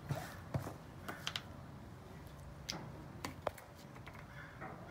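Light clicks and snaps from handling small plastic slime tubs and the slime inside them. About seven of them come scattered through the first three and a half seconds.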